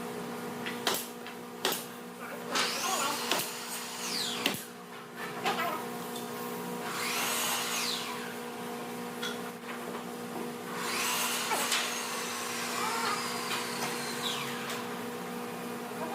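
A handheld power drill spinning up and winding down in three short runs of a second or two, with knocks and clicks between them over a steady background hum.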